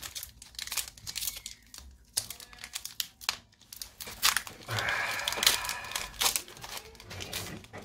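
Foil wrapper of a Pokémon card booster pack crinkling and tearing as it is worked open by hand: a run of sharp crackles, with a denser, longer stretch of crinkling and tearing about five seconds in.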